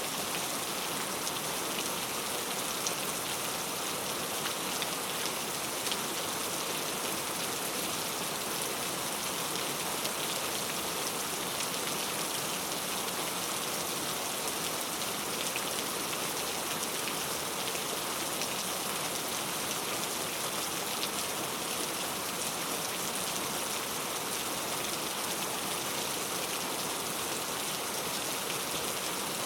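Steady rain falling, an even hiss with faint ticks of individual drops.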